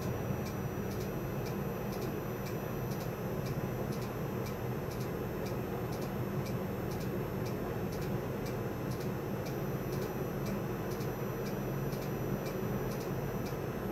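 Steady electrical hum and a high-pitched whine from a home-built Burroughs B-7971 Nixie-tube display and its logic driver boards. A faint tick repeats about two to three times a second, keeping pace with the text stepping one character at a time.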